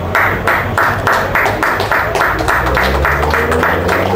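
Music with a fast, even beat, about three and a half beats a second, over a steady low bass.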